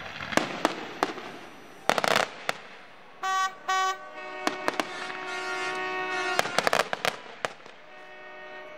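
Fireworks display: shells exploding in a series of sharp bangs, several close together about two seconds in. After the bangs come two short pitched blasts and then a longer steady pitched sound that stops at about seven and a half seconds.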